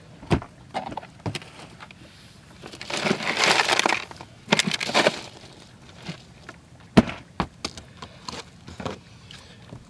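Hands digging a baitfish out of a cooler packed with ice: ice rattling and crunching in two spells a few seconds in, with scattered sharp knocks, the loudest about seven seconds in as the fish goes onto the cutting board.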